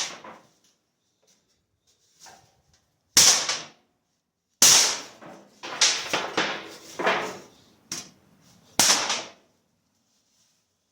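The steel glass-breaker tip on the butt of an OTF knife hammered against a sheet-steel tin, about six sharp metallic strikes a second or so apart, each with a short ring, denting the tin.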